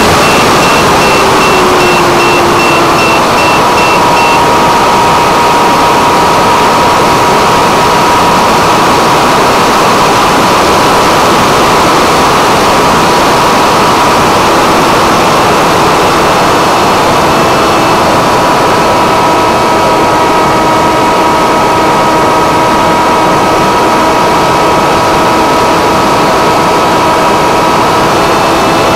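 Onboard sound of an electric Funjet delta-wing model in fast flight: a loud, steady rush of air over the camera with the brushless motor and pusher propeller whining at several steady pitches. One lower tone falls in pitch during the first few seconds.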